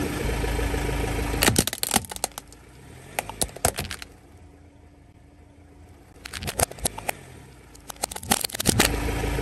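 Plastic toy truck cracking and snapping under a car tyre in four bursts of sharp cracks. A car's engine runs with a low rumble at the start and again near the end.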